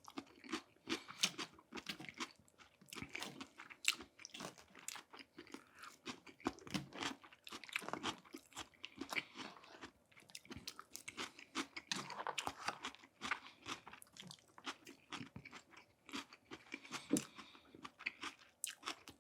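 Close-miked chewing and crunching of crispy fried food: irregular crunches and crackles, several a second.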